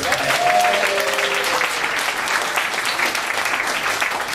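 Live audience applauding steadily at the end of a song.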